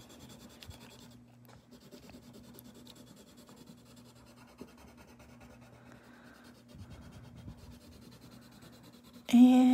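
Coloured pencil scratching faintly on paper in quick, continuous shading strokes.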